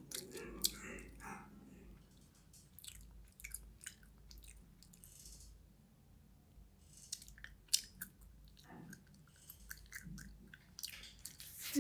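Quiet chewing and eating sounds from a person's mouth, a string of small wet clicks with a few soft murmurs, made to voice dolls eating toy food.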